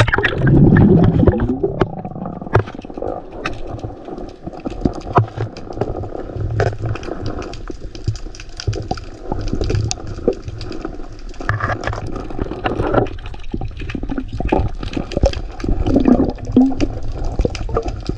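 River water splashing and churning around a swimmer diving in, loudest in the first second or so, with many small knocks and clicks throughout.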